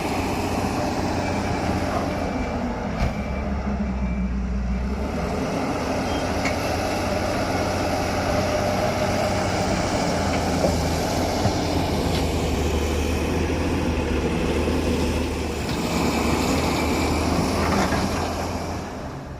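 Tata 340 backhoe loader's diesel engine running steadily under working load, with a few short knocks.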